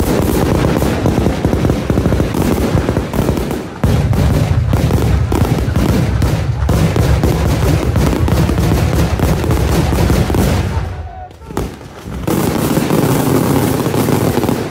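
Daytime fireworks battery firing: a dense, rapid string of loud bangs from aerial salutes and crackling stars, with a brief lull about three-quarters of the way through before the bangs resume.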